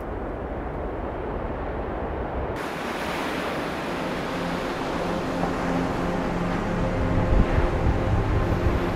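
Wind rushing, at first a low rumble, then from about two and a half seconds in a brighter hiss. Faint steady tones come in about halfway through.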